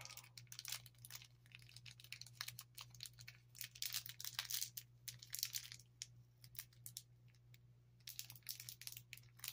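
Small clear plastic bag crinkling and crackling in the fingers as it is worked at and pulled to get it open, in a run of quick crisp crackles that ease off for a moment about two-thirds through.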